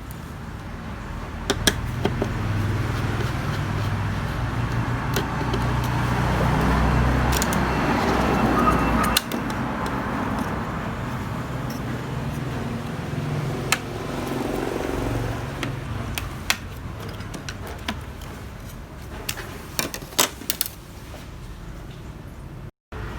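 Steady low rumbling background noise that builds and then drops off suddenly about nine seconds in, with scattered sharp clicks and knocks.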